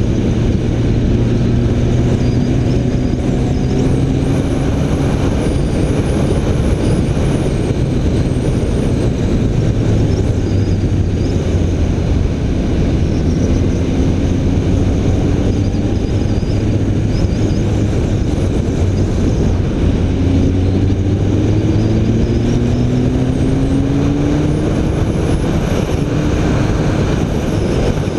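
BMW K1300 R inline-four engine running while riding, its revs climbing several times as it pulls through the gears. It is heard over a steady rush of wind noise.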